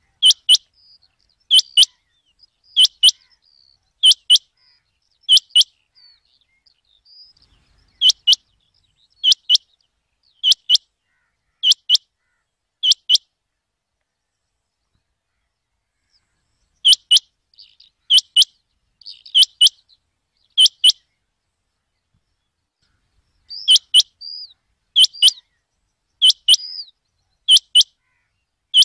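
Rain quail calling: sharp, high doubled notes repeated about once every second and a quarter in runs of four or five, with pauses of a few seconds between runs and a few fainter notes in between.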